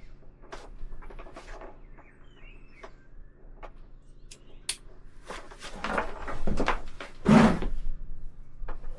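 Clicks, knocks and rustling of hands working with cables and a hand tool, with a few short squeaks in the first couple of seconds and busier handling in the second half, the loudest knock about seven seconds in.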